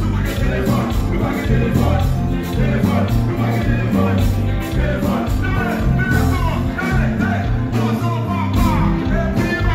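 A live Haitian konpa band playing loudly, with a steady bass line, a regular drum beat and singing.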